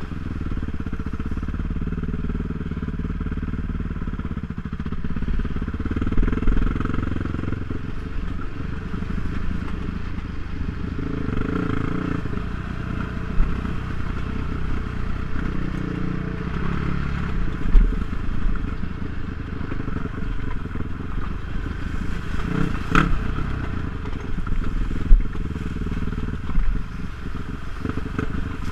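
ATV engine running at varying throttle while riding a rough, leaf-covered trail, with rattles and bumps from the ride. A sharp knock comes late on.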